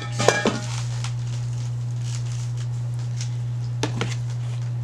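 A steady low electrical hum throughout, with a quick cluster of knocks and hair swishing in the first half second as long hair is flipped back, and two soft taps about four seconds in.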